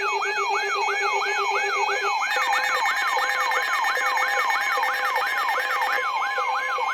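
Electronic siren-style alarm: a falling sweep repeating about three times a second, layered with steady tones and short repeated beeps.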